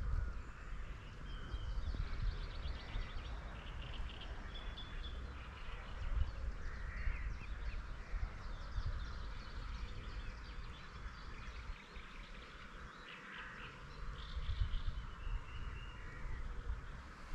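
Wind gusting on the microphone, with small birds chirping and calling in the background.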